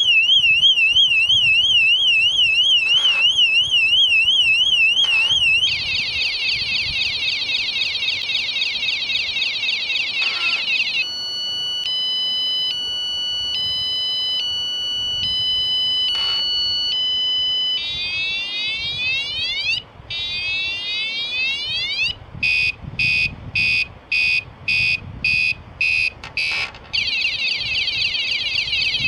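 Motion-sensor bicycle alarm siren going off after the bike is shaken, loud and high-pitched. It runs through its tones in turn: a fast warble, a rapid trill, a stepped alternating two-tone pattern, repeated rising whoops, sharp beeps about two a second, then the warble again.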